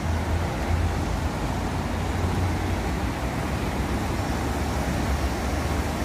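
Steady rush of river water pouring through a channel in a stone weir, with a constant low rumble underneath.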